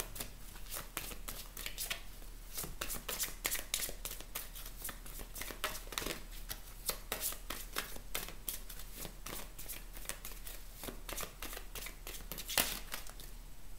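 A deck of oracle cards being shuffled by hand: a continuous run of quick, soft flicks as the cards slide against each other, with one slightly louder slap near the end.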